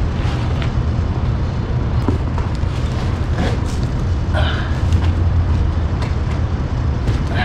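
Steady low rumble of wind buffeting the microphone, with a few faint knocks from the board bag and cardboard box being handled.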